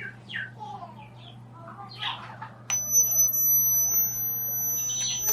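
Samsung Galaxy A02's loudspeaker giving a low steady hum. About halfway through, a loud, steady, high-pitched tone joins it for about three seconds. This is the phone's audio noise fault, typical of unclean current to the audio amplifier, which the technician later traces to the power IC area.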